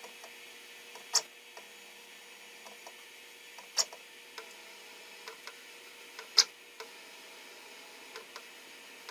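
Four sharp clicks about two and a half seconds apart, with a few softer ticks between them, over a faint steady hum: a CNC router's tool touching off against the edges of a circle during an automatic probing cycle to find the circle's centre.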